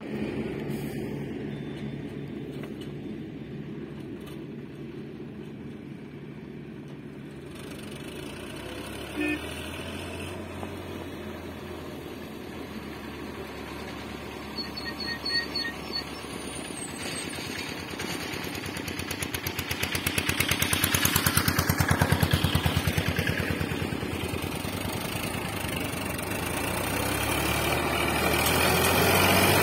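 Sonalika farm tractor's diesel engine running under load while it hauls a trailer of soil, with a steady rapid beat. It grows louder as the tractor approaches, is loudest about two-thirds of the way through, eases briefly, then rises again near the end.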